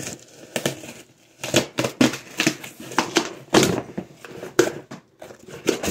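Cardboard shipping box being pulled open by hand: packing tape and cardboard flaps tearing and crackling in a quick, irregular series of short rips.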